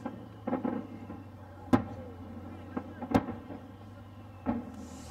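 Aerial fireworks shells bursting: four sharp bangs about a second apart, the loudest about two seconds in.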